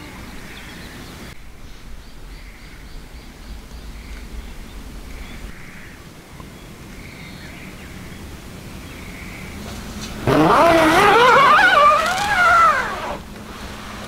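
Quiet outdoor morning air with a few faint bird chirps, then a loud, wavering, pitched call about ten seconds in. It lasts about three seconds, rising and then falling away.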